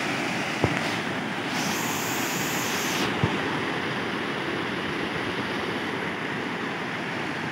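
Water cascading down a rock face, a steady rush, with a couple of faint knocks.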